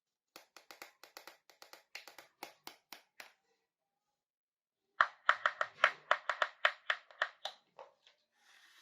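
Quick light taps and clicks from miniature toy kitchen pieces being handled, about four or five a second, in two runs, the second louder, followed by a brief soft rustle near the end.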